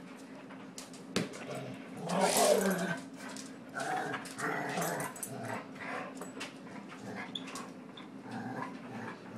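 Dog growling low and steadily, a warning growl at being pushed around, with a louder rough stretch about two seconds in.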